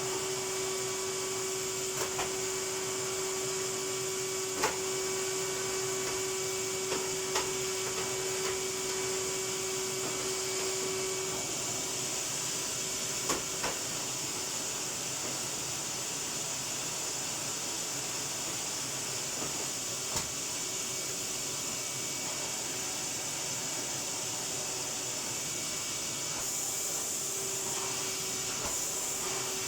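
Vacuum cleaner running steadily, with a hissing rush of air and a steady hum that fades out a little over a third of the way in and comes back near the end. A few short knocks.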